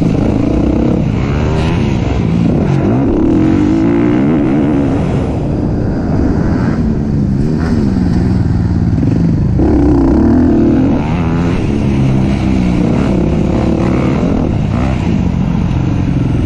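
Racing engine running hard, its pitch repeatedly climbing and dropping as it accelerates and backs off.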